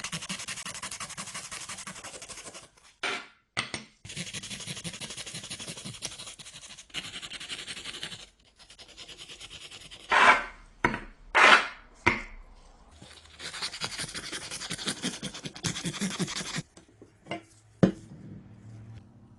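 Rapid scraping and rubbing strokes of a hand tool on a hard surface, in runs of a few seconds with short breaks, with a few louder scrapes about ten to twelve seconds in.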